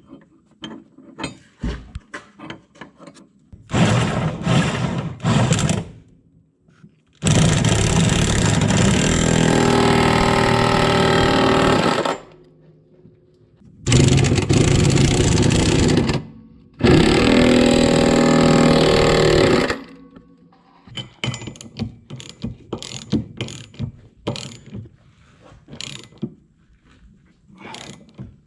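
A power tool runs in several loud bursts, three short ones and then three long ones of up to about five seconds, driving the tow hitch's mounting bolts. Near the end come light scattered clicks of hand tools on the fasteners.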